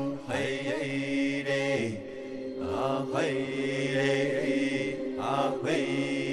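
Background music of a chanting voice singing long held notes that glide between pitches, with short breaks between phrases.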